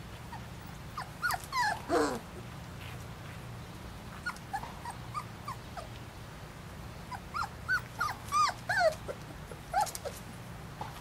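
Four-week-old pointer puppies whining and squeaking, many short high calls that arch up and down in pitch, in two flurries: one about a second in and a busier one from about seven to ten seconds in.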